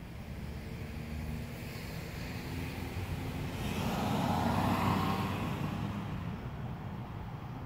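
A road vehicle passes by: its noise swells to a peak about halfway through and then fades away, over a steady low rumble.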